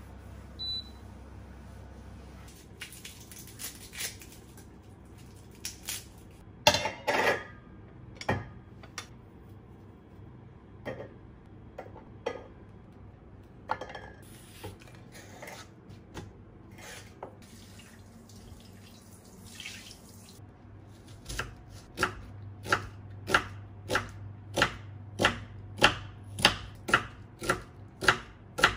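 Scattered light clicks and knocks of kitchen handling, then a kitchen knife slicing an onion on a wooden cutting board, in steady strikes about one and a half a second, through the last third.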